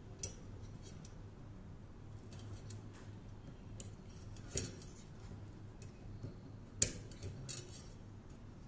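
Light, irregular clicks and taps as elastic cord and its fittings knock against a microphone shock mount's frame while the mount is being strung by hand; the sharpest click comes about three-quarters of the way through.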